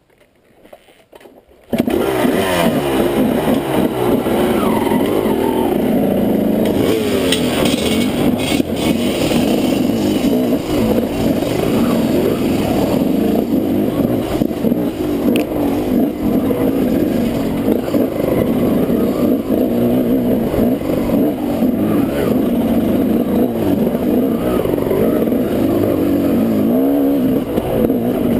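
KTM 200 two-stroke dirt bike engine running and revving up and down as it is ridden along a rough trail, heard close from the rider's helmet. It cuts in suddenly about two seconds in, after near silence.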